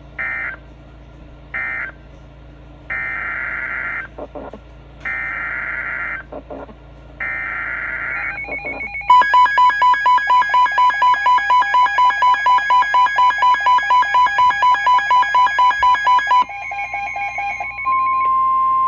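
Emergency Alert System SAME digital data bursts, a screechy two-tone warble: a few short bursts, then three longer ones about a second each. They are followed by about seven seconds of rapid electronic beeping, about four beeps a second. About a second before the end the steady weather-radio alert tone near 1 kHz begins.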